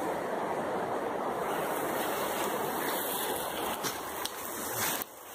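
Steady rushing background noise through the forest, with a few short rustles or snaps near the end as the camera is carried through brush.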